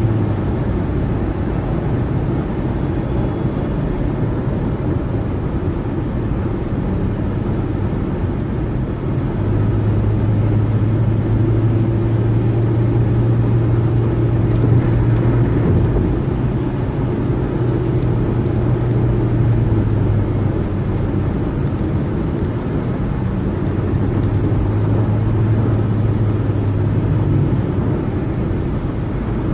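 Car driving at freeway speed: steady tyre and road noise with a low drone that comes and goes.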